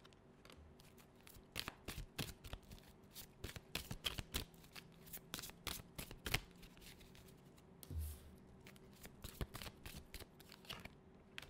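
A tarot deck being shuffled by hand, a soft, rapid, irregular patter of card clicks, with cards now and then falling out of the deck onto the wooden table.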